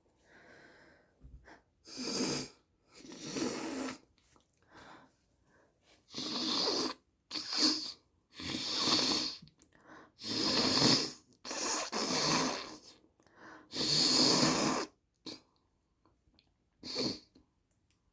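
A person blowing their nose hard into a handkerchief over and over: about eight or nine forceful blows with short pauses between them.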